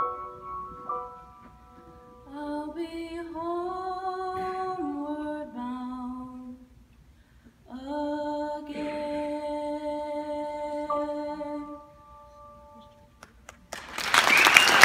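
A woman sings the closing phrases of a slow solo song, held notes over sustained grand piano chords, with two sung phrases separated by a short pause. The piano fades out, and applause breaks out about a second before the end.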